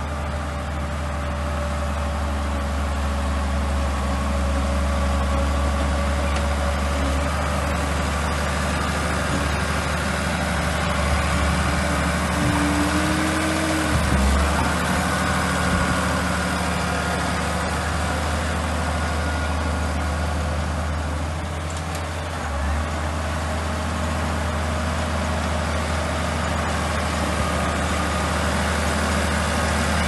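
Old Komatsu crawler bulldozer's diesel engine running steadily as it works, a low, even drone throughout.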